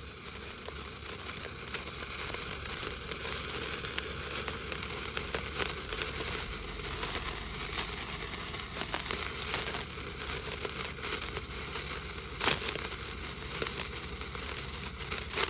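Handheld sparkler burning with a steady crackling hiss of spitting sparks. A sharper, louder crack comes about twelve and a half seconds in, and the sound falls off suddenly at the end.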